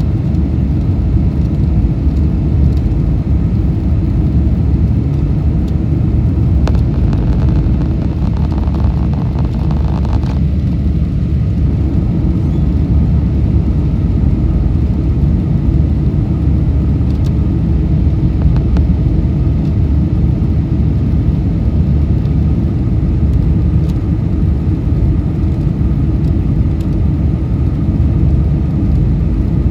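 Steady, loud low rumble inside the cabin of a Boeing 747-400, from its four Pratt & Whitney PW4056 engines and the airflow around the fuselage. About seven seconds in, a brighter hiss rises over it for about three seconds, then cuts off abruptly.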